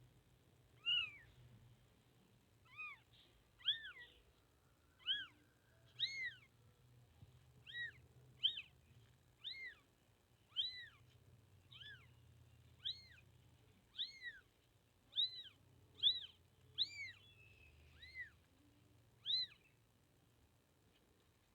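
Newborn kitten mewing over and over, short high-pitched cries that rise and fall, about one a second: the distress calls of a kitten separated from its mother.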